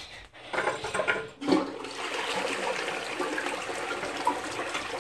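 Cisa toilet rated 6.0 litres per flush, flushing: a few uneven gurgles and splashes in the first second and a half, then a steady rush of water through the bowl.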